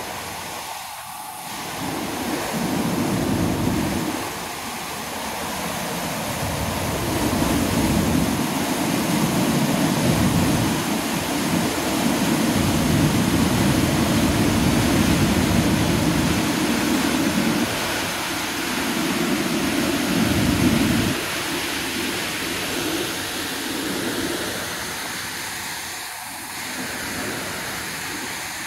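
Steady rushing noise of the flooded Bagmati River in spate, muddy floodwater churning and pouring over a weir. Under it an uneven low rumble swells and drops away every few seconds.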